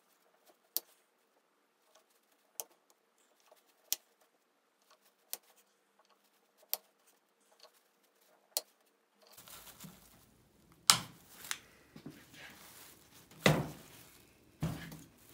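New automatic-transmission solenoids being pushed one at a time into the bores of a ZF6HP26 valve body, with a sharp click about every second and a half. From about nine seconds in there is rustling with a few louder knocks as the installed solenoids are handled.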